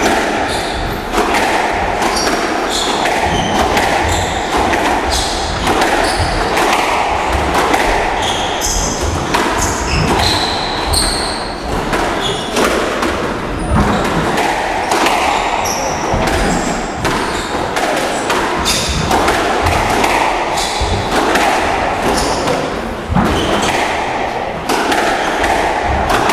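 Squash rally: frequent sharp knocks of the ball off rackets and court walls, irregularly spaced, with short high squeaks of shoes on the court floor.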